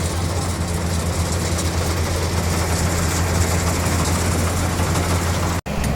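Rice combine harvester's engine running steadily with a deep, even hum. The sound drops out for an instant near the end and the hum picks straight up again.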